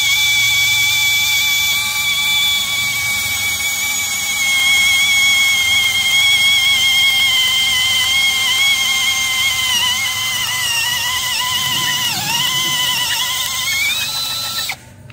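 APR AP17 cordless drill boring through solid steel: a steady high motor whine that wavers and sags under load, rises briefly as the bit breaks through near the end, then stops suddenly.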